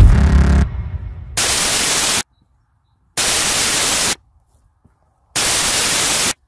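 The intro music ends on a deep bass note that fades out over about the first second. Then come three bursts of loud static hiss, each about a second long, with dead silence between them: a glitch-style static transition sound effect.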